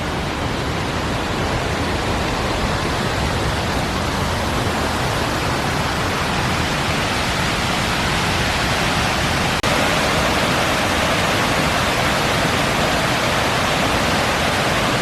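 Steady rushing of a waterfall pouring through and over a dam. A small click a little under ten seconds in, after which the rush is slightly louder.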